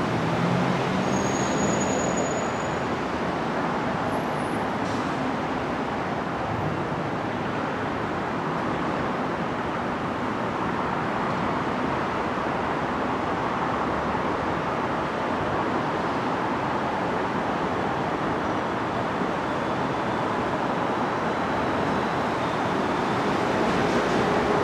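Steady vehicle running noise, an even rumble with no distinct events.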